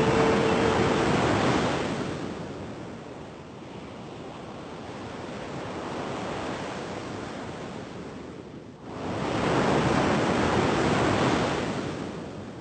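Sea surf: waves breaking and washing in, loud at first, easing off, then surging up again about nine seconds in before fading out.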